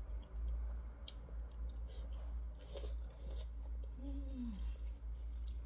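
A person eating: chewing with small wet mouth clicks, and a short 'mm' about four seconds in, over a steady low hum.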